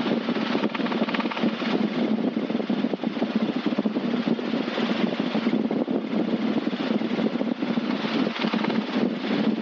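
Robinson R22 helicopter in low, fast flight, heard from inside the cockpit: a loud, steady drone of piston engine and rotor with a fast flutter running through it.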